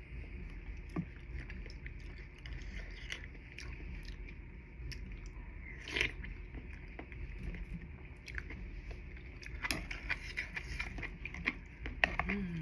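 A person chewing and biting food close to the microphone, with scattered small clicks that come thicker toward the end, and a short hum near the end.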